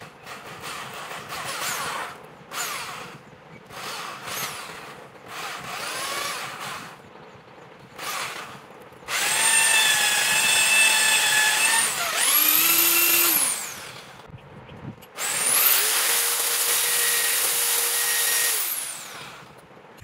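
Small electric drill running in bursts. In the first half there are several short runs that speed up and wind down. From about nine seconds in come longer steady runs, the pitch rising as each starts and falling as it stops.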